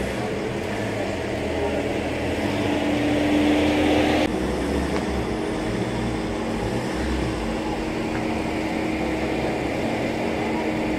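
Steady low hum of a running engine over street background noise. The noise grows a little louder over the first few seconds, then drops abruptly about four seconds in and stays steady.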